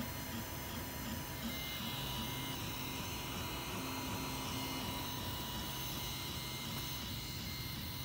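Tevo Tornado 3D printer running a print: its stepper motors whine at low pitches that change in quick steps as the print head and bed move, over a steady hum with a few constant higher tones.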